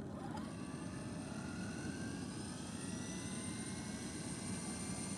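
Align T-Rex 500 electric RC helicopter spooling up: a click at the start, then its motor and rotor whine rising slowly in pitch.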